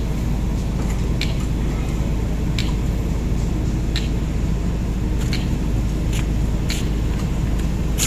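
Sharp clicks, one every second or so at uneven spacing, over a steady low rumble.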